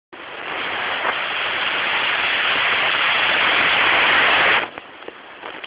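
A loud, steady hiss that builds slightly and cuts off suddenly near the end, leaving a lower background with a few faint clicks.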